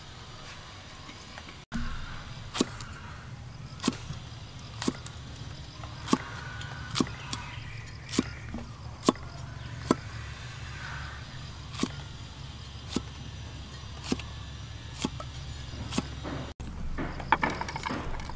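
A cleaver knocking on a wooden chopping board as red chili peppers are sliced, one sharp knock about every second. Near the end comes a busier clatter as the chili slices are moved onto a plate.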